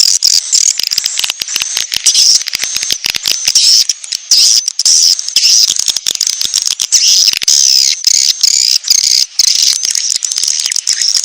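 Bird-lure recording of small birds calling: a dense, unbroken run of high-pitched rapid chirps and trills, played to draw in young and wild birds.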